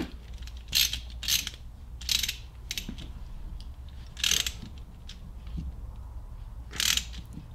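Hand ratchet with a hex bit socket clicking in short bursts, about five times, as it tightens the set screw of a brass welding cable connector down onto the copper cable strands.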